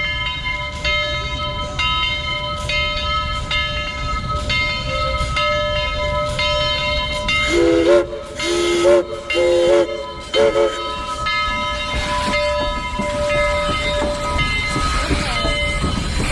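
Southern Railway 4501, a 2-8-2 steam locomotive, approaching with its bell ringing steadily, about one strike a second. About halfway through it sounds its chime whistle in four blasts. The engine then passes close by with steam hiss and rail noise.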